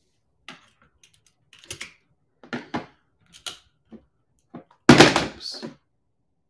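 Scattered clicks and knocks from handling computer and streaming equipment at a desk, with a louder thump about five seconds in.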